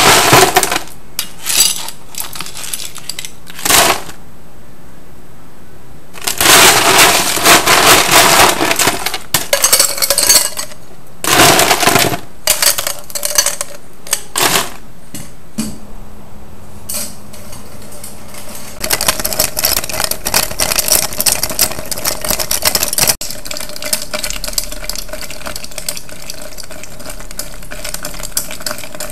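Ice cubes clattering and clinking in bursts as they are scooped from a stainless-steel ice bin and tipped into a glass mixing glass.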